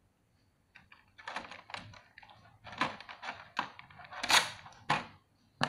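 Hard plastic clicking and rustling: action-figure armor parts being handled and taken from a clear plastic blister tray. An irregular string of sharp clicks starts about a second in.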